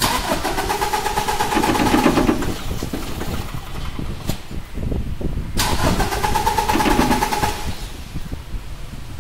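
Toyota Innova Crysta diesel engine being cranked by its starter in two bursts of about three seconds, with WD-40 sprayed into the air intake as a starting aid. The engine cranks but will not start on its own, which the mechanic takes as a sign of an injector (nozzle) fault.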